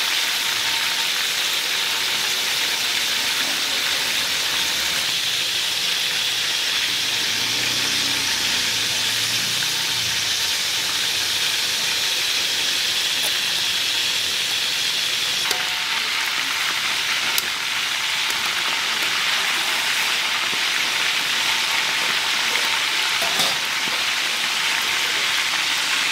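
Whole quails frying in hot oil in a wok: a steady sizzle, with a few faint pops here and there.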